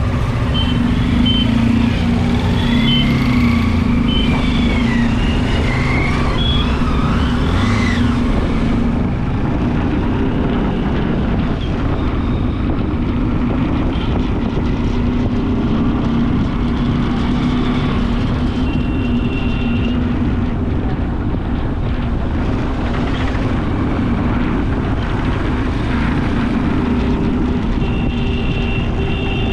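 Steady engine drone under loud road and wind noise, heard while riding along a road, with short high horn beeps twice, in the second half and near the end.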